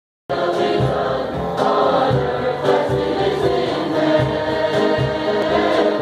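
A choir of many voices singing together over a steady low beat, cutting in abruptly a moment in.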